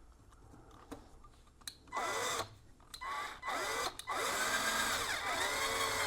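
WORKPRO 12-volt cordless drill driver driving screws: a few short trigger pulls about two seconds in, then a longer run from about four seconds, the motor's whine rising and falling as the trigger is eased.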